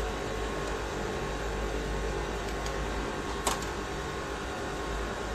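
Light metallic clicks of valve-cover nuts and washers being handled on a Honda B16A engine's valve cover, the sharpest about three and a half seconds in, over a steady mechanical hum.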